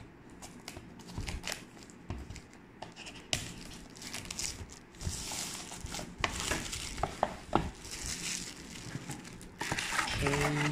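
Cardboard product box and its packaging being handled: rustling and crinkling with scattered light knocks and scrapes, busier from about halfway through.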